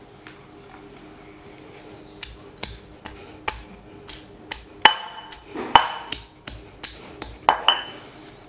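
Stone pestle pounding garlic cloves and coriander in a stone mortar: sharp knocks about two to three a second, starting about two seconds in, a few of them ringing briefly off the stone.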